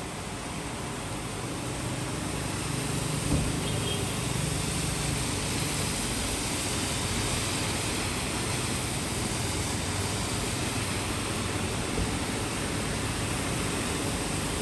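Steady rain hiss. A low rumble rises a couple of seconds in, and two faint sharp knocks come about three seconds in and again near twelve seconds.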